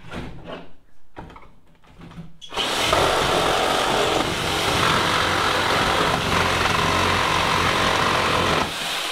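Corded reciprocating saw cutting through a wooden pallet, slicing between the pine boards and the 2x4 and through the nails that join them. A few handling knocks come first, then the saw starts about two and a half seconds in and runs steadily through the cut, then stops near the end and spins down.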